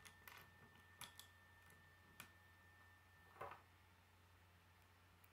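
K'nex plastic rods and connectors being handled and snapped together during assembly: a handful of faint, short clicks, the loudest about three and a half seconds in.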